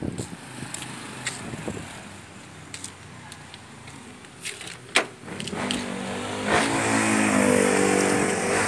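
A motor vehicle's engine running in the street, growing louder from about halfway through. There is a sharp click about five seconds in.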